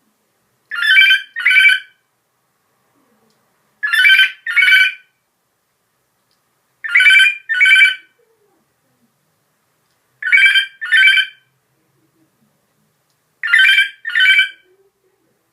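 African grey parrot imitating a telephone ringing: five double rings, one pair about every three seconds.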